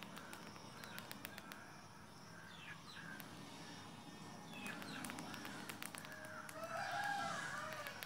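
Birds calling outdoors, with short falling chirps and a louder, longer call about seven seconds in. Scattered light clicks and ticks run throughout.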